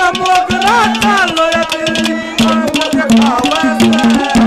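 Live ragni music: quick hand-drum strokes over a steady held drone, with a wavering melody line above.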